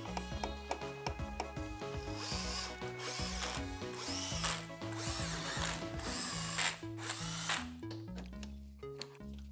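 Cordless drill-driver driving in headlight mounting screws, running in about six short bursts a second or so apart from about two seconds in, each spinning up briefly.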